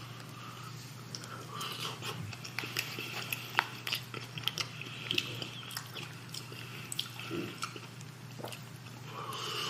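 A person chewing and biting food close to the microphone: irregular wet clicks and smacks of the mouth, with a steady low electrical hum underneath.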